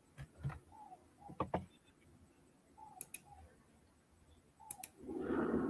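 Scattered clicks of a computer mouse and keyboard picked up by a video-call microphone, with faint short chirps between them and a louder muffled noise near the end.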